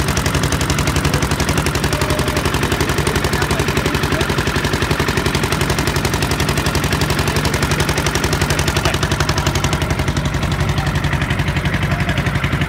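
A boat engine running steadily: a rapid, even chugging over a steady low hum.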